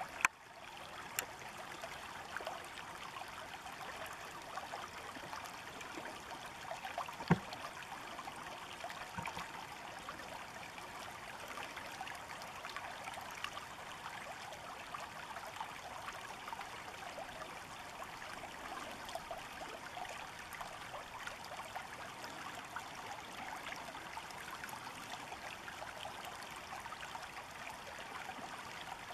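Steady rippling of a shallow river running over rocks. There is a sharp click near the start and a louder one about seven seconds in.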